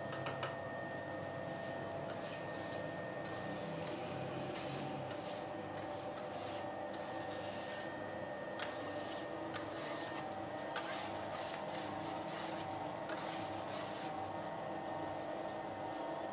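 Irregular rubbing and scraping strokes in a bakery, over the steady hum of running machinery.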